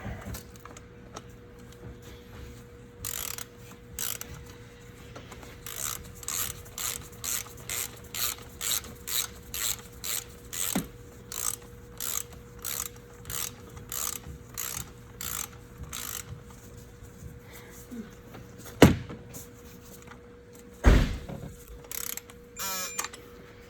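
Hand ratchet wrench worked in short back-and-forth strokes, clicking in bursts about twice a second while bolts are run down, followed by two sharp metallic knocks near the end.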